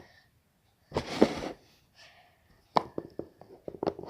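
Homemade slime being squished in one hand: a short loud burst about a second in, then a run of sharp wet pops and clicks, several a second, from about three seconds in.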